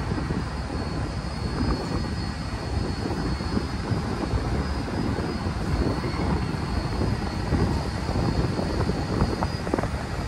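A ferry boat's engines running steadily under way, a constant low drone with a faint steady high whine over it.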